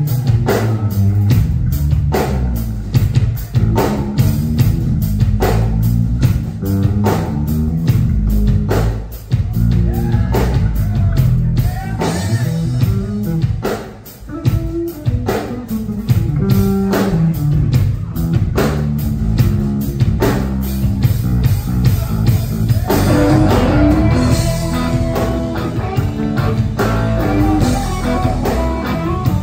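Live rock band playing with electric guitars, electric bass and a drum kit keeping a steady beat. The band drops back briefly about halfway through, and the guitars grow fuller over the last quarter.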